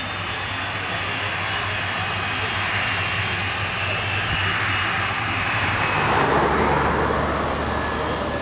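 Qantas Boeing 747-400's four jet engines running on the runway, a steady hum with high whining tones. About six seconds in the sound turns into a louder rushing noise with a deep rumble as the jumbo passes close at speed.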